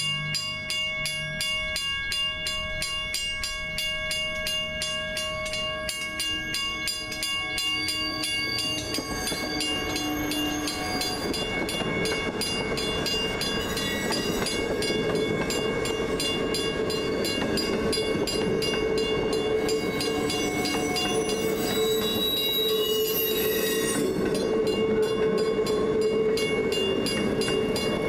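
South Shore Line electric interurban train running past on street track, its wheel and motor noise building up from about nine seconds in and staying loud to the end, over a steady whine of several even tones.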